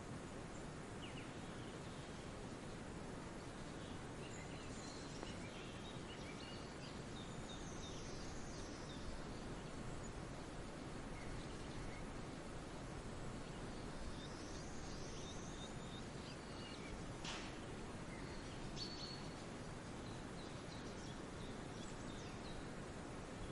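Steady outdoor background hiss with faint, scattered songbird chirps. A couple of longer swooping calls come through, and there is one brief sharp sound about two-thirds of the way in.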